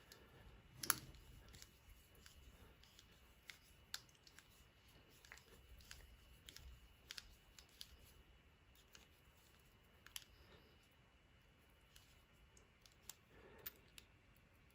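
Sparse small metallic clicks and taps from a screwdriver working at the drill-plate screw of a padlock, with quiet gaps between them; one sharper click comes about a second in.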